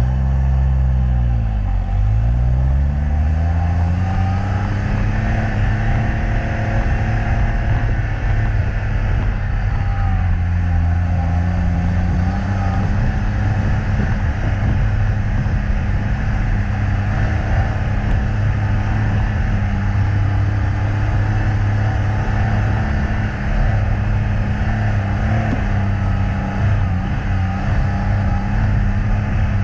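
Classic trials car's engine pulling under load up a rough track, heard close from the bonnet. The revs drop and climb back about two seconds in, then hold fairly steady with a small dip around ten seconds.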